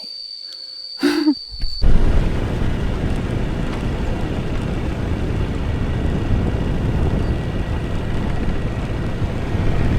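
Wind buffeting the microphone and a motorbike running while riding, coming in suddenly about two seconds in and staying steady after that. Before it there is a steady high-pitched whine and a short low hoot-like sound about a second in.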